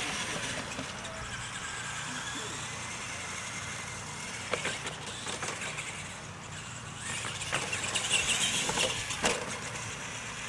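Radio-controlled monster trucks running across a dirt track, their motors and drivetrains whirring, louder for a couple of seconds near the end. A few sharp knocks land about four and a half, seven and a half and nine seconds in.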